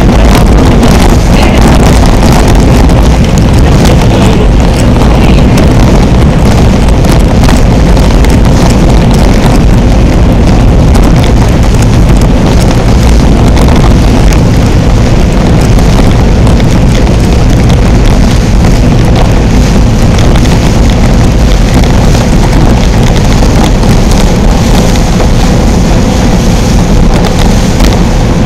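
A boat's engine running steadily under way, with wind rumbling on the microphone.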